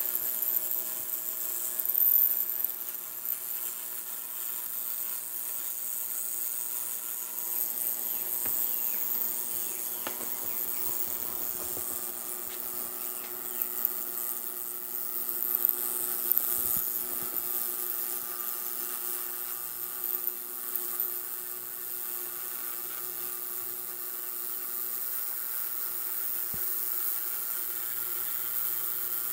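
Ultrasonic cleaner running, a steady high-pitched hiss and buzz from the cavitating bath as it lifts grime off a vintage Craftsman 1/4-inch ratchet and its parts, with a few faint clicks.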